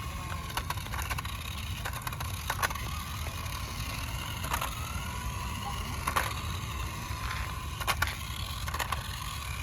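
Electric RC toy car running, a faint motor whine drifting up and down in pitch, with scattered sharp clicks and knocks over a steady low rumble.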